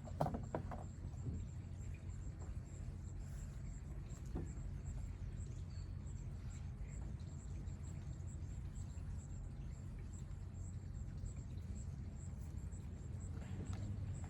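Steady low outdoor rumble, with a few light knocks in the first second and one more about four seconds in.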